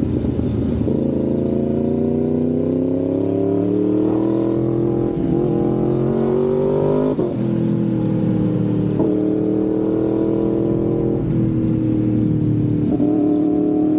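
Yamaha MT-10's crossplane inline-four through an SC-Project aftermarket exhaust, under way and accelerating. The note climbs steadily for about seven seconds, drops sharply, then dips briefly several more times as at gear changes.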